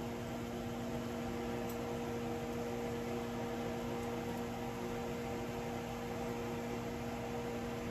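Kitchen range hood exhaust fan running over a lit gas stove, a steady hum with an even rush of air, drawing the fumes off the stovetop.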